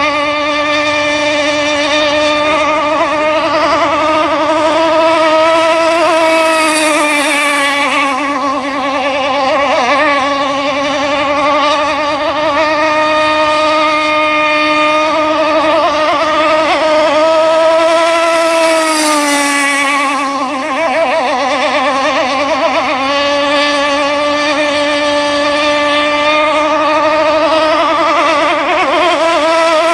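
Gas-powered RC sport hydroplane's two-stroke engine running flat out at speed, a loud high-pitched buzz that wavers in pitch throughout, dipping briefly about twenty seconds in and then climbing again.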